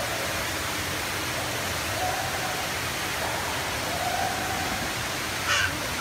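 Steady rushing background noise, with faint voices far off and a brief sound near the end.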